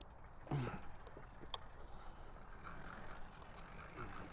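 Bicycle drivetrain being pedaled, its chain and sprockets rattling and ticking faintly with a sharp click about a second and a half in, while the 80cc two-stroke engine on the motorized bicycle is not yet running.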